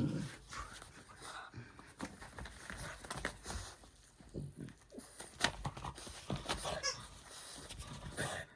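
French bulldog tugging at a dog toy, with short, irregular dog noises and knocks of play.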